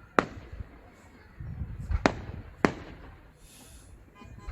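Daytime fireworks bursting: three sharp bangs, each echoing briefly. One comes just after the start and two come close together about two seconds in, about half a second apart.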